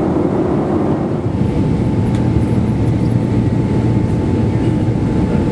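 Steady cabin roar of a Boeing 767-300 airliner in flight, from engine and airflow noise, with a faint steady whine entering about a second in.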